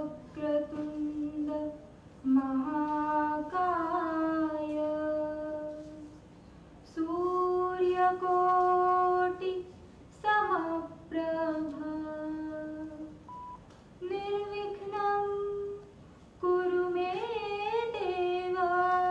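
A woman singing solo and unaccompanied into a microphone, in long phrases of sustained, held notes with short pauses for breath between them.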